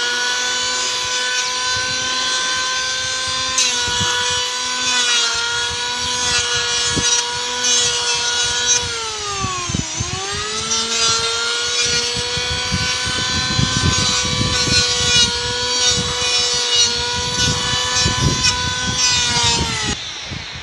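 Power tool motor running with a steady whine and a rough rattle underneath. Its pitch sags and recovers about halfway through, as under load in wood, and it cuts off near the end.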